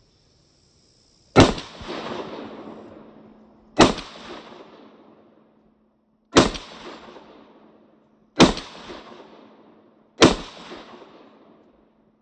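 Five shots from a DSA BushTracker FAL rifle in .308, fired one at a time about two seconds apart, each sharp report trailing off over a second or more.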